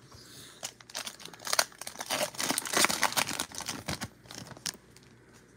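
Foil trading-card pack wrapper being torn open and crinkled by hand: an irregular run of sharp crackles that dies away after about four and a half seconds.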